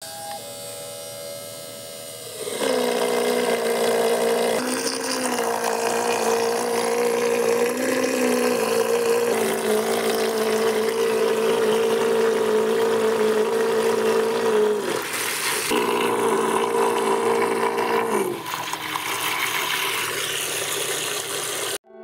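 12 V RS-775 DC motor driving a small 3D-printed centrifugal water pump, its steady whine mixed with water churning and splashing in a bucket. About two seconds in, the whine drops in pitch and the water noise becomes much louder. The sound falters briefly two-thirds of the way through and weakens near the end.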